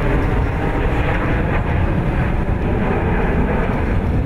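Steady jet noise from a formation of six F/A-18 Hornet fighter jets flying overhead, a continuous low rumble with no clear pitch.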